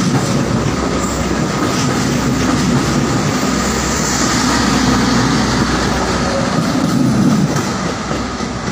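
KA Gajayana passenger train running through the station without stopping, its coaches rolling past close by with a steady rumble of wheels on the rails. The noise eases off near the end as the rear of the train moves away.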